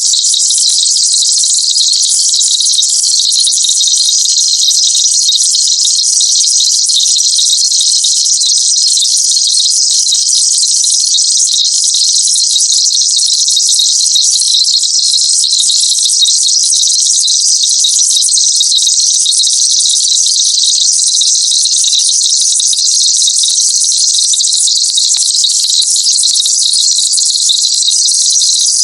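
Synthetic pest-repellent sound: a loud, steady, high-pitched hiss of dense shrill tones, unchanging throughout.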